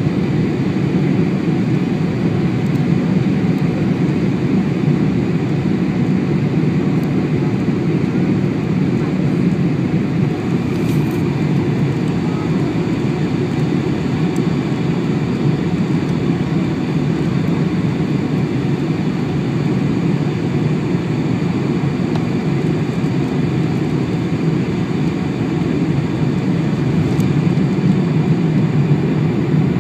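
Steady, even cabin noise of a Boeing 747 on approach with its flaps extended, heard from inside the passenger cabin: a low rumble of engines and airflow that holds level throughout.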